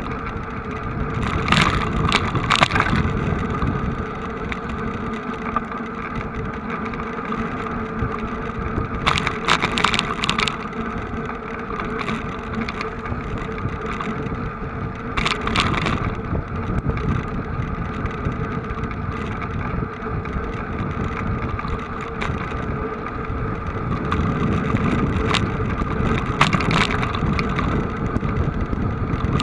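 Vehicle engines running steadily, with a few short bursts of crackle.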